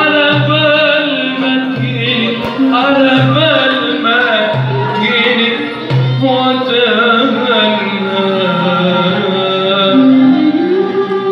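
Live Arabic song: a man sings long, ornamented phrases into a microphone over a darbuka (goblet drum) that sounds low strokes about every second and a half.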